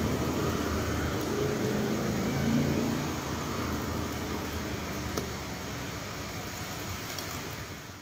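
Street traffic noise with a motor vehicle's engine running, loudest in the first few seconds and then fading away.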